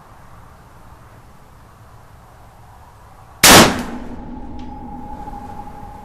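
A single gunshot from a short-barrelled 7.62x39 AR-15 pistol about three and a half seconds in, followed by a steady ringing tone that fades over the next couple of seconds.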